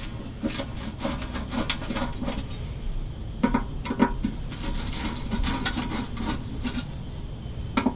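Old patinated screws being turned out of a steel-bodied resonator guitar's coverplate: irregular scraping and light clicking of metal, with a couple of sharper clicks about halfway through.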